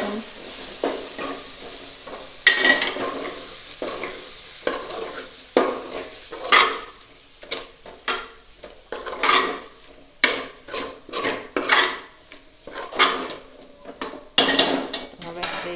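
A steel spoon stirring eggplant curry in a stainless-steel pot, with repeated irregular scrapes and clinks of metal on metal as the spices are mixed in.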